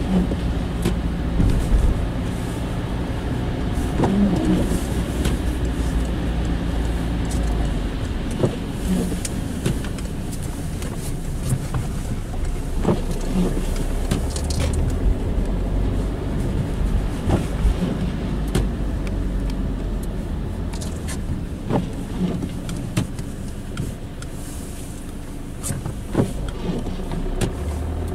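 Car driving on wet, slushy streets, heard from inside the cabin: a steady low engine and road rumble, with scattered sharp ticks and clicks at irregular intervals.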